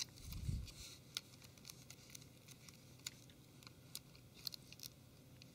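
Faint scattered clicks and light taps as a Samsung Galaxy Ace S5830's plastic case is pressed into place by hand, with a soft thump within the first second.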